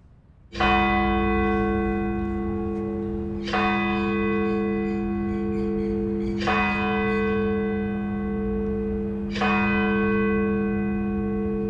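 A large bell struck four times, about three seconds apart, each stroke ringing on into the next.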